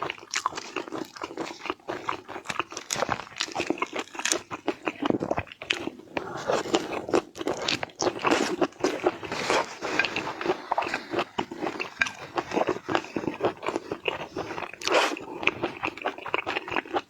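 A person biting, crunching and chewing seafood close to the microphone, with dense, irregular crunches and wet chewing throughout.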